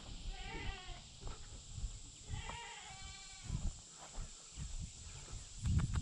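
Goats bleating, two wavering calls in the first half, over low thumps of footsteps through grass that grow louder near the end.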